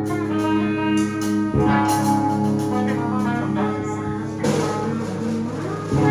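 Electric guitars on a clean amp setting ringing out sustained chords, with a freshly struck chord change about one and a half seconds in and another about four and a half seconds in.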